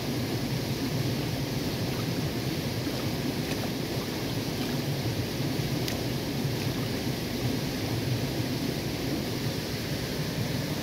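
Shallow stream running steadily over stones, an even rushing of water.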